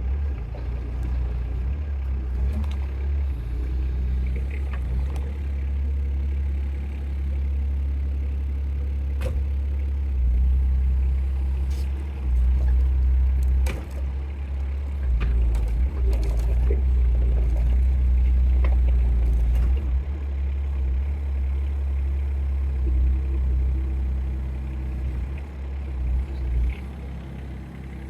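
Small diesel engine of a mini excavator running, getting louder in stretches as it works, with scattered short knocks and clanks.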